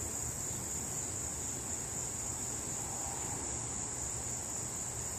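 Steady, high-pitched chorus of crickets, unbroken throughout, over a faint low background rumble.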